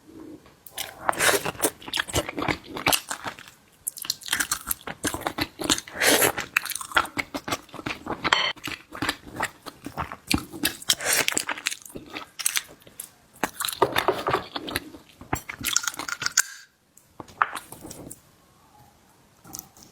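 Close-up eating of seafood: dense, irregular wet crunching, chewing and smacking that stops about three-quarters of the way through, followed by one brief burst near the end.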